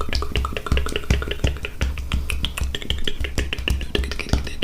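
Close-miked ASMR mouth sounds: quick, irregular wet clicks and pops from the tongue and lips, with a low pulsing rumble underneath.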